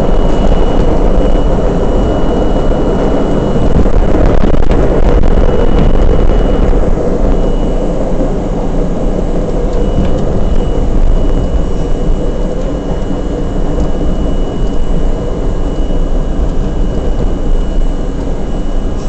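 R32 subway car running at speed through a subway tunnel: a loud, steady rumble of wheels on the rails with a thin high whine over it.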